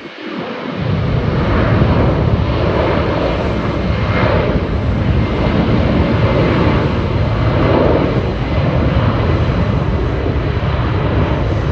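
Boeing 767-300F freighter's twin jet engines at takeoff power: a loud, steady roar that swells in about a second in and then holds.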